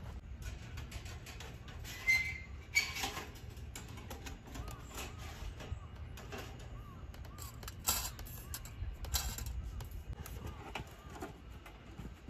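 Metal clinks and knocks of a folding perforated-metal grill stand being unfolded and set on a metal tabletop, a few sharp ones standing out. Birds call faintly in the background.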